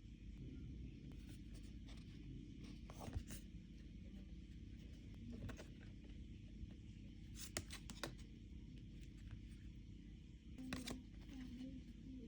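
Quiet handling of an album package and its contents: scattered rustling and scraping, with a few sharp clicks or taps, about three seconds in, around eight seconds and near the end, over a low steady hum.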